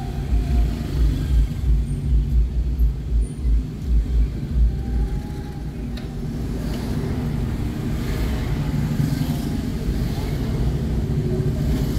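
Vehicle driving slowly in town traffic: a low rumble that pulses unevenly for the first five seconds, then settles into a steadier rumble with more hiss, with a short click about six seconds in.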